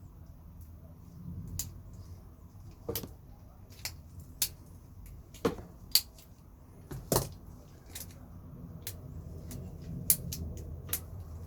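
Irregular light clicks and knocks of small folding multi-tools being handled, their metal implements and pliers opening and closing, with a few sharper snaps near the middle.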